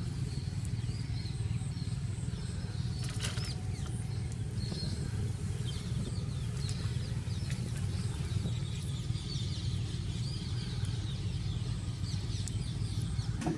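A steady low rumble throughout, with faint high chirps of chicks peeping over it and a few light clicks.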